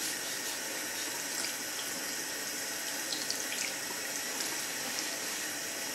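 Bathroom tap running steadily into a sink, the stream splashing over a ceramic water-filter element being scrubbed clean under it.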